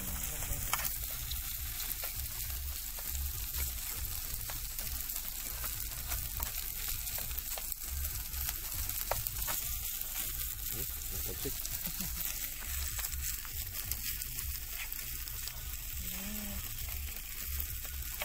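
Garlic fried rice (sinangag) with egg and corn sizzling steadily in a hot frying pan as it is stirred, with a utensil scraping and clicking against the pan now and then.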